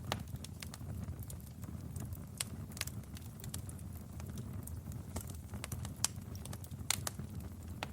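Fireplace fire crackling: irregular sharp pops and snaps over a low, steady rumble of burning flames.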